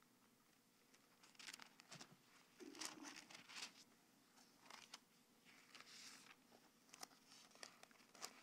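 Faint paper rustling and soft ticks as thin Bible pages are leafed through, in short scattered bits.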